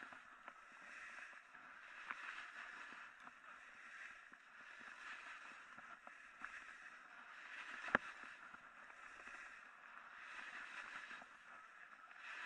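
Snowboard edges carving and sliding on wet snow: a faint hiss that swells and fades with each turn every couple of seconds. There is one sharp knock about eight seconds in.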